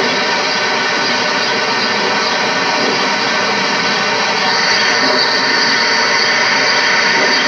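Steady mechanical drone and hiss with no pauses, growing a little brighter about halfway through.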